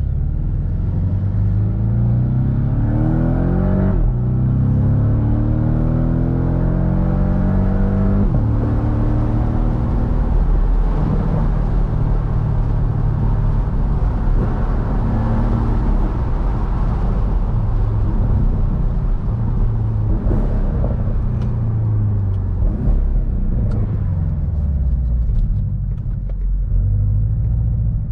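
Porsche 718 Boxster's turbocharged flat-four engine accelerating hard from a standstill. Its pitch climbs, drops at upshifts about four and eight seconds in, then settles into steady cruising under wind and tyre noise through the open top.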